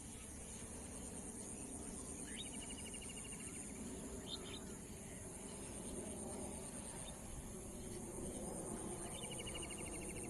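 Outdoor nature ambience: a steady high-pitched drone of insects such as crickets over a low, even rush. A bird calls with a rapid trill about two seconds in, gives a short chirp about four seconds in, and trills again near the end.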